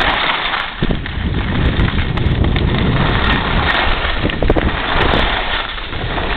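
Wind rushing over the microphone and skis hissing over snow while skiing downhill, a loud, steady noise that rises and falls a little.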